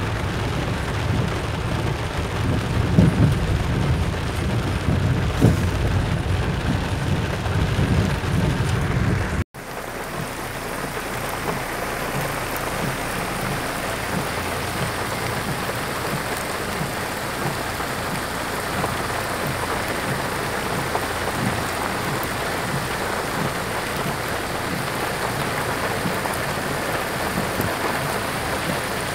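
Heavy rain heard from inside a car: a steady, even hiss of rain falling on the car and the ground. For the first nine seconds or so a strong low rumble of the car driving runs under it. After a sudden cut, only the rain hiss is left.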